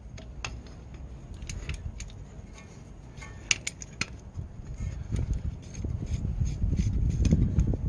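A flat steel bar clinking and scraping against a brake caliper and pad as it is fitted in to push the caliper piston back, with scattered sharp metal clicks. A low rumble grows louder over the last few seconds.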